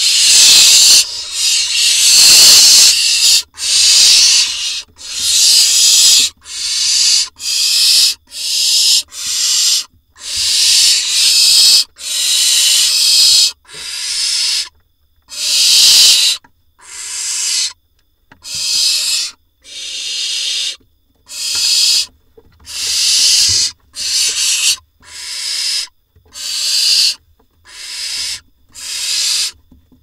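Barn owl nestlings giving their rasping, hissing begging calls ("snoring"), a string of separate hisses coming about once a second, overlapping at first.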